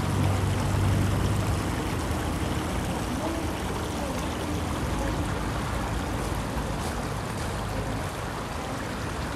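Steady rushing outdoor noise, with a low hum under it that fades away in the first second or two.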